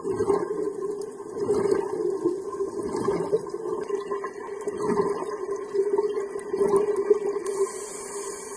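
Underwater sound of scuba exhaust bubbles gurgling, surging in irregular bursts every second or two.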